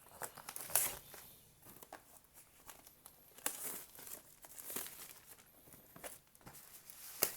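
Packaging being unwrapped by hand: crinkling wrapping with some tearing, and a few sharp knocks and clicks in between.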